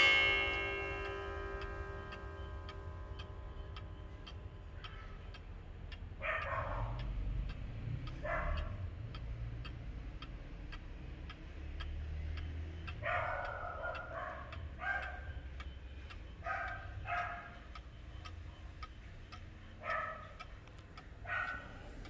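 A Black Forest clock with a wooden-plate movement strikes once as its hand is moved, a single ringing stroke that dies away over about four seconds, then the movement ticks steadily. A dog barks several times in the background from about six seconds in.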